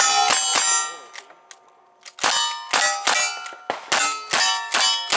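Lever-action rifle shots at steel targets, each shot answered by the ringing of a struck steel plate. A quick burst of about three comes first, then a pause of over a second, then a steady string about every half second.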